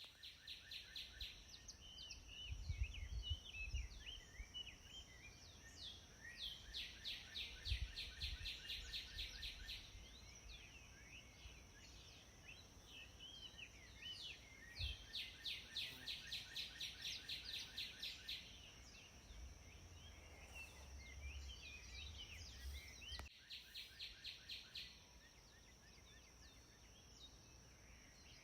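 Songbirds singing, with fast runs of repeated high notes, several a second, each run lasting a few seconds, mixed with scattered chirps. A steady high hiss runs underneath, with low rumbling at times.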